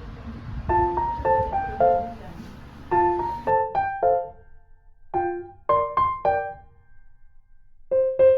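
Background piano music: a light melody of single struck notes and small chords, with two short pauses partway through.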